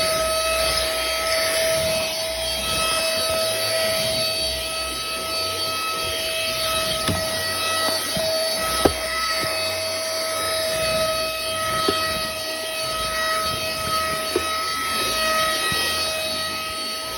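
Small battery-powered mini vacuum cleaner running, its motor giving a steady high whine over a rushing hiss, with a few sharp clicks along the way.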